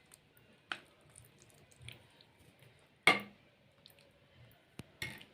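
Thick lemon syrup being strained through a kitchen sieve: faint wet squishing and dripping, broken by a few sharp knocks, the loudest about three seconds in.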